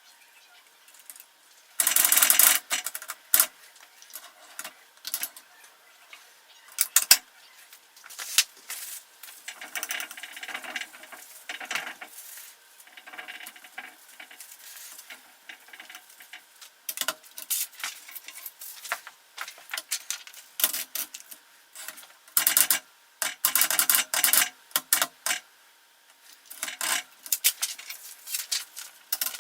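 Old manual typewriter mechanism clicking and clattering in irregular bursts, with the loudest clatters about two seconds in and again around twenty-two to twenty-five seconds in.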